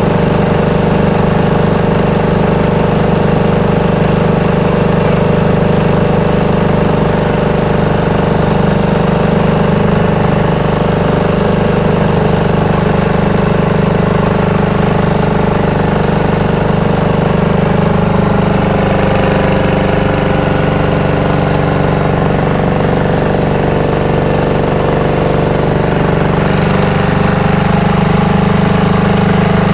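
An engine running steadily at a constant speed, a loud even hum.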